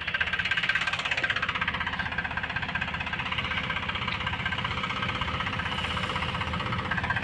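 Powertrac Euro 50 tractor's diesel engine running steadily under load while it drives a 2-metre rotavator tilling the soil.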